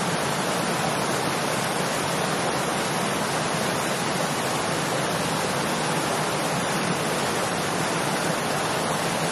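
Small creek running over rocks: a steady rush of flowing water close by, unchanging throughout.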